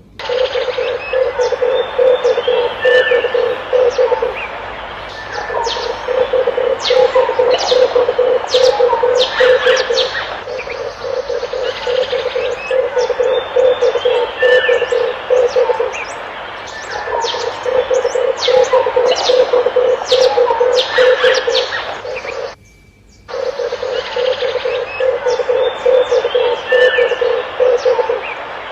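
Red turtle dove giving its low, rapidly pulsed rolling coo over and over, in phrases of about four to five seconds with short pauses between them. Smaller birds chirp throughout at a higher pitch, and all sound breaks off briefly about two-thirds of the way through.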